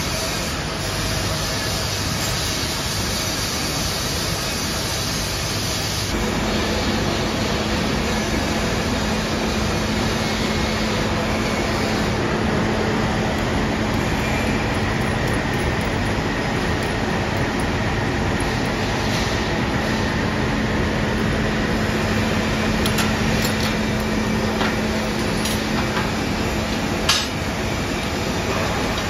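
Steady workshop machinery noise. A low, even motor hum joins about six seconds in, and a few sharp clicks come near the end, the loudest about twenty-seven seconds in.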